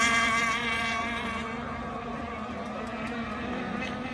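Small engines of radio-controlled racing boats buzzing at high, steady revs on the water. The level drops through the first half and builds a little again near the end.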